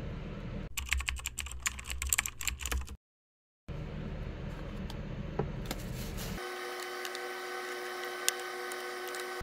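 A rapid run of sharp clicks like keyboard typing, lasting about two seconds and cutting off suddenly into a moment of dead silence. After that comes a steady background hum, which gives way to several steady held tones for the last three seconds.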